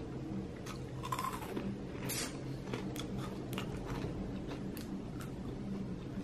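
Someone crunching and chewing a crisp snack: a scatter of sharp crackles and crunches at irregular intervals.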